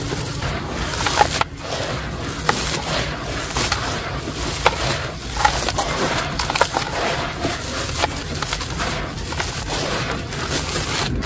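Hands crumbling and squeezing soft cement lumps in a basin of shallow water: continuous gritty crunching and wet sloshing, with many short sharp crackles as the chunks break and drop.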